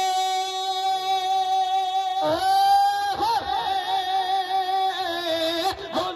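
A singer reciting a naat, an Urdu devotional song, drawing out long held notes. A new phrase begins about two seconds in, and from there the voice wavers and turns in ornaments.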